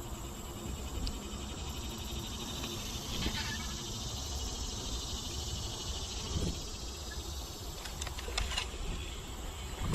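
Steady high-pitched insect buzzing, with a low rumble underneath and a few faint clicks near the end.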